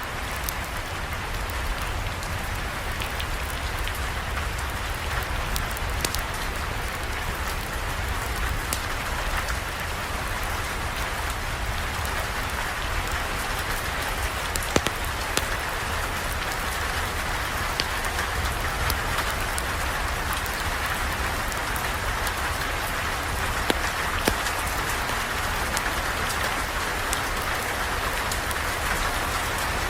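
Steady rain falling, with scattered sharp ticks and a low steady rumble underneath.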